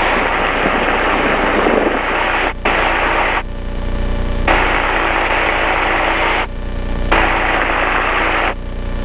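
Two-stroke ultralight aircraft engine picked up through the COM radio and headset microphone, heard as a loud, hissy, radio-filtered noise with static. A few times the hiss thins for about a second and the engine's steady tone comes through more plainly.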